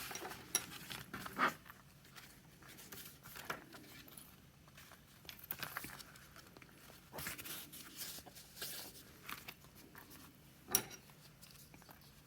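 Hands handling a leather traveler's notebook and its paper inserts: scattered small clicks, taps and rustles, with a sharper knock about a second and a half in and another near the end.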